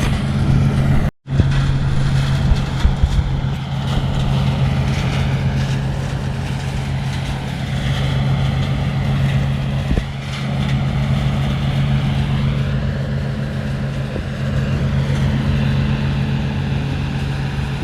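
Combine harvester running steadily while harvesting soybeans, a constant low engine drone. The sound drops out for a moment about a second in.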